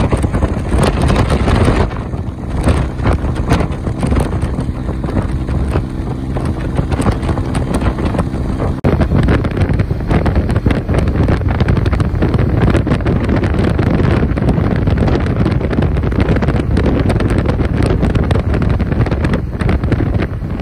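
Motorcycle running at road speed, with heavy wind buffeting the microphone. An engine hum shows under the wind at first, and the sound shifts abruptly about nine seconds in.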